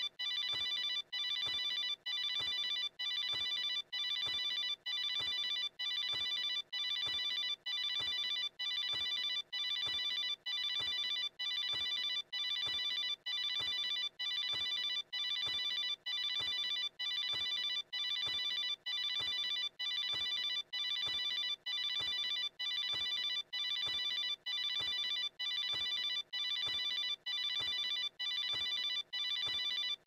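Cartoon mobile phone ringtone sound effect: a high electronic trilling ring, repeating about once a second with short gaps, looped without change.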